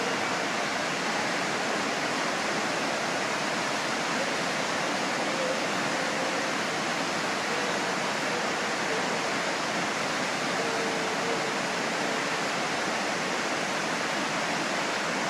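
Steady rushing roar of the Wallace Falls waterfall, water pouring down without a break.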